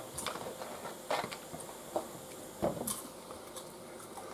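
Baked tortilla chips crunching and crackling: a handful of short, irregular crackles, the loudest about a second in and near three seconds in.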